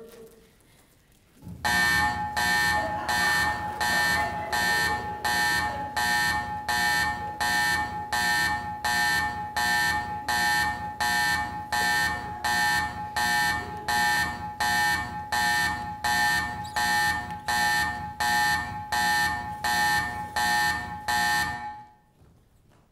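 A pulsing electric alarm buzzer sounds about three times every two seconds for some twenty seconds. It starts suddenly about a second and a half in and cuts off shortly before the end.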